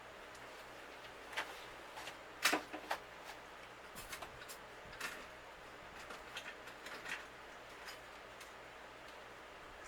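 Scattered light clicks and knocks, the loudest cluster about two and a half seconds in, from parts being handled, typical of refrigerator panels and parts being wiped down and fitted back.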